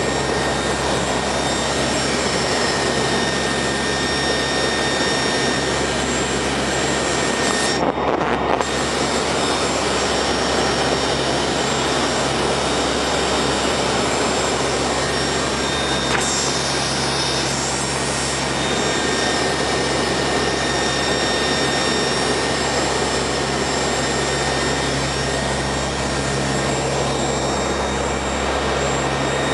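Steady drone of a NOAA P-3 Orion's four turboprop engines and propellers, heard from inside the aircraft, with a constant hum and whine over the engine noise. The sound goes briefly dull about eight seconds in.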